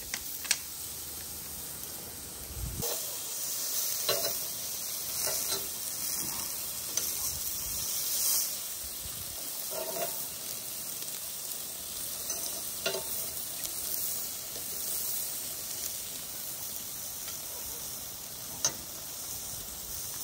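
Food sizzling steadily as it cooks, with a few sharp clicks and knocks scattered through.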